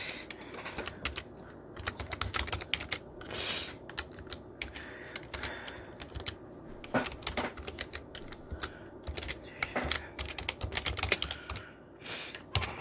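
Typing on a keyboard: irregular quick clicks and taps, with a brief rustle about three and a half seconds in.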